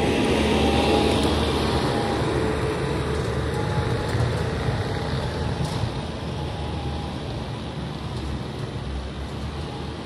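Bobcat T590 compact track loader's diesel engine running as the machine drives away, fading steadily.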